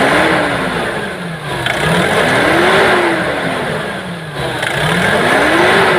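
Nissan NV350 van engine being revved up and let back down in slow, repeated waves, the pitch climbing and falling about every three seconds. It is a test rev after a low-power fault was fixed.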